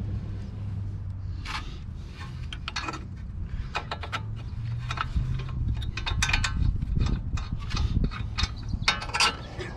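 Metal parts and hand tools clinking, tapping and scraping in irregular short strokes, some with a brief metallic ring, over a steady low hum.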